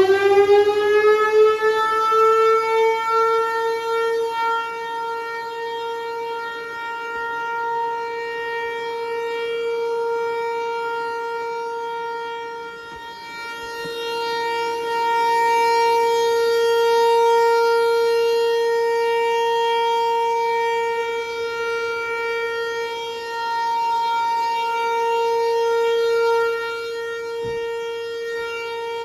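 ASC Tempest-135 outdoor warning siren sounding a steady tone at full speed after winding up. Its loudness swells and fades slowly.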